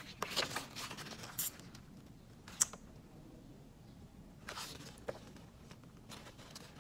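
A strip of black paper being handled on a wooden table: quiet sliding and rustling with a few light clicks as it is picked up and bent toward a fold, the sharpest click about two and a half seconds in.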